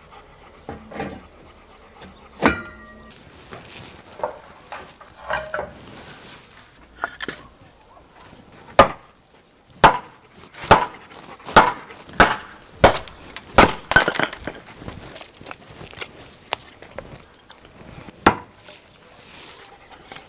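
Hatchet splitting a log of firewood on a wooden chopping stump: about eight sharp wooden chops in quick succession around the middle, with a few lighter knocks before and one more chop near the end.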